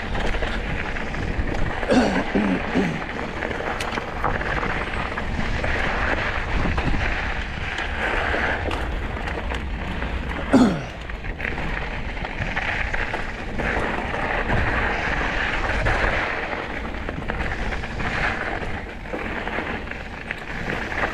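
Mountain bike riding over rough dirt and rocky singletrack: a steady rush of wind on the microphone over the low rumble of the tyres rolling and the bike rattling on rocks, with small knocks. Two short falling-pitched sounds come through, one about 2 seconds in and a louder one about halfway.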